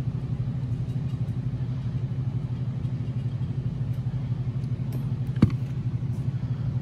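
A steady low mechanical hum with a fast flutter. About five seconds in, one sharp knock as a suppressed Ruger Mark IV pistol is set down on a bench mat.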